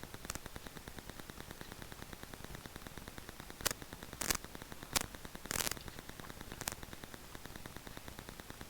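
Rode VideoMic Go on a GoPro Hero 7 Black giving a steady hiss with a fast, faint ticking, broken by about half a dozen sharp pops, mostly in the middle of the stretch. This is the hissing, popping and electrical-interference noise that the owner finds this mic always makes and believes is not normal for it.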